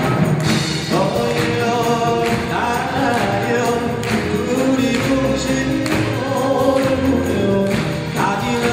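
Male Korean folk singer (sorikkun) singing through a microphone over a full Korean traditional (gugak) orchestra.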